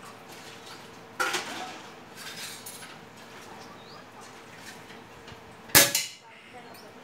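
Precihole PX100 Achilles .177 PCP air rifle: a metallic clack about a second in and some lighter metallic handling just after, as the action is worked, then a single sharp, loud shot near the end.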